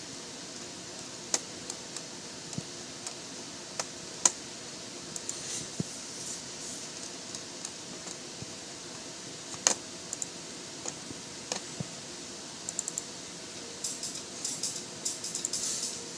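Scattered sharp clicks and taps from a laptop's trackpad and keys over a steady hiss, with a quicker run of clicks and rustling near the end.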